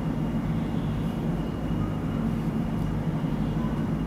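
A steady low machine hum in the room, even and unchanging.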